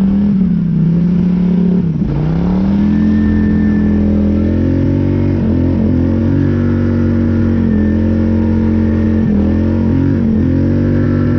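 Polaris Scrambler 850 ATV's twin-cylinder engine running on the throttle through deep snow. Its pitch dips and climbs back about two seconds in, then holds fairly steady with a few brief dips.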